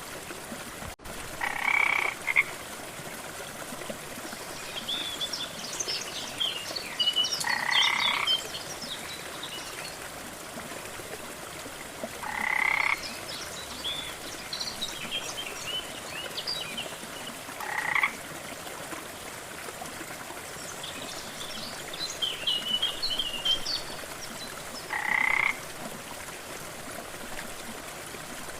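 Frog croaking five times, each call short and spaced roughly five seconds apart, over a steady rush of waterfall water. Scattered higher-pitched chirps come between the croaks.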